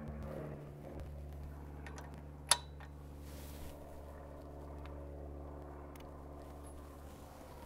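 Ratchet and socket tightening a gear-case fill plug: one sharp click about two and a half seconds in and a few faint ticks, over a steady low hum.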